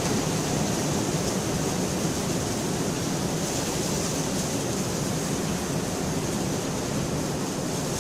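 Steady heavy rain, an even hiss with no change or thunder in it.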